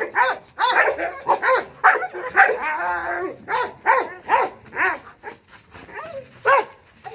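Guard dogs barking fiercely at a decoy's bite sleeve during protection training, in a quick run of about two to three barks a second. The barks thin out toward the end.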